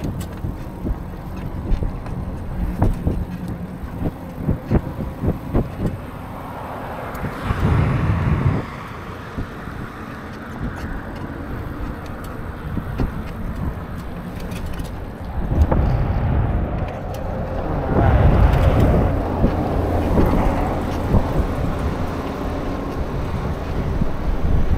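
Wind buffeting the bare microphone of an action camera on a moving e-bike, over tyre and road noise, with scattered knocks. A louder rush of noise comes about a third of the way in and a longer one over the last third.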